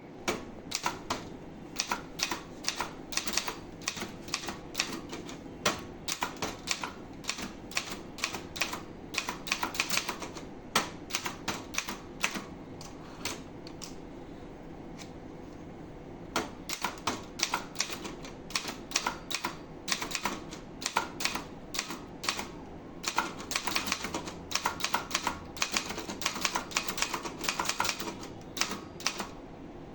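Brother Charger 11 manual portable typewriter being typed on: fast runs of key strikes, several a second, with a pause of about three seconds around the middle.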